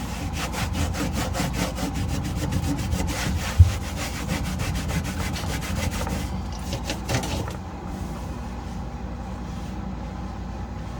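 Fast back-and-forth scrubbing of a fridge surface with a Norwex cloth layered over a scrubbing pad, in quick, even strokes that stop about six seconds in, with a brief patch of strokes again a second later. There is one sharp thump about three and a half seconds in.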